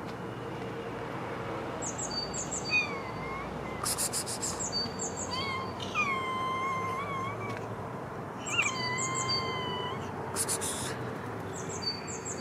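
Street cats meowing for food: three drawn-out meows, each a second or more long, with short bird chirps and twitters around them.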